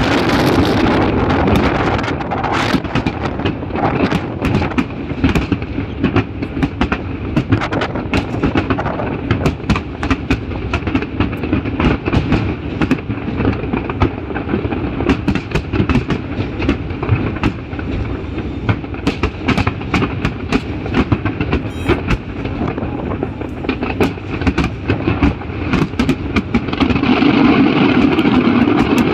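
Fireworks going off: an irregular, rapid run of sharp bangs and crackles over a steady rumble, building louder near the end.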